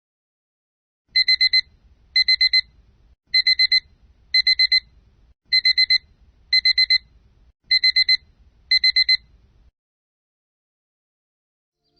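Phone default alarm tone in the classic digital alarm-clock style: groups of four quick high beeps, about one group a second, eight groups in all, then it stops.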